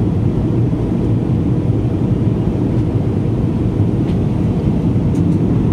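Steady, loud low rumble of a passenger aircraft's cabin noise, heard from a window seat.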